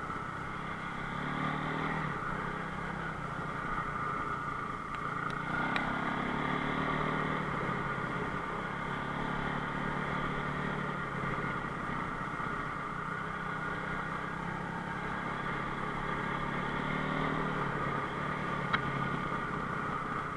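Enduro motorcycle engine running under a rider, its revs rising and falling, with two brief sharp clicks.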